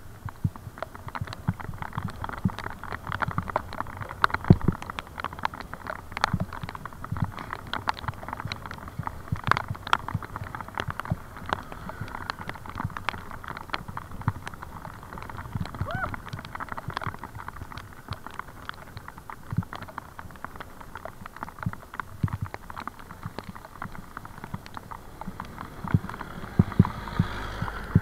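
Continuous irregular rattling and knocking, typical of a bicycle in motion jostling over the road.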